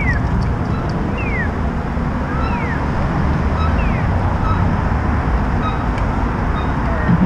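Steady wind rumble on the microphone and traffic noise while moving along a city street, with a pedestrian crossing signal chirping: a quick falling chirp about every 1.3 seconds, four times in the first four seconds.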